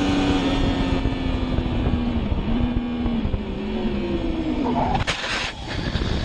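Sport motorcycle engine under hard braking, its note falling steadily and jumping back up twice as it is shifted down, over rushing wind. About five seconds in, a harsh rough burst of noise as the bike goes down in a crash.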